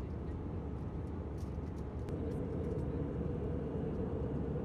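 Steady low rumble of a moving vehicle, growing slightly louder about two seconds in, with a few faint ticks.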